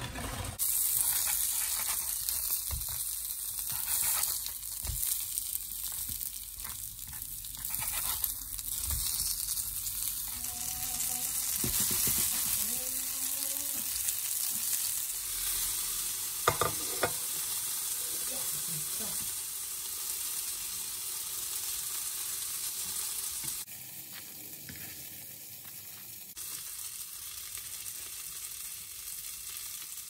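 Breaded fish fingers sizzling in hot oil in a frying pan, a steady hissing crackle, with a few sharp knocks about halfway through. The sizzle cuts off suddenly about three-quarters of the way in, leaving a much quieter background.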